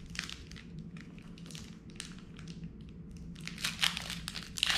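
Foil Pokémon booster pack wrapper crinkling and crackling as it is handled and opened. The crackles grow busier and louder near the end.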